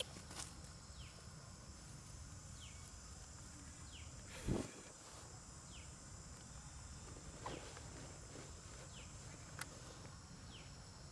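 Outdoor woodland ambience: a steady high-pitched insect drone, with a short falling chirp repeated about once a second. A brief rustle-like thump about halfway through is the loudest sound.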